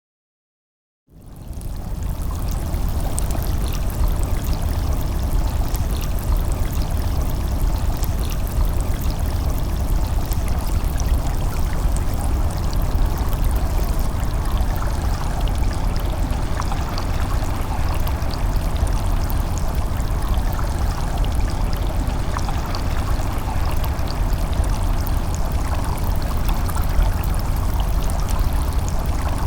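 River water flowing steadily, a continuous rushing with a deep low rumble underneath, fading in about a second in.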